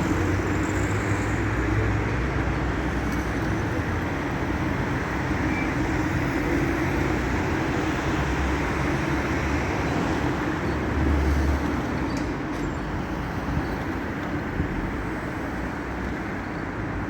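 Steady vehicle rumble with even road or running noise, easing a little in the last few seconds.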